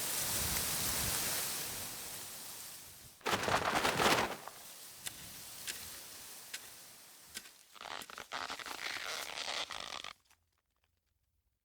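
A run of separate cartoon sound effects: a swelling hiss of noise, then a loud rustling crunch about three seconds in, a few sharp ticks, and another rustling stretch that cuts off abruptly near the end.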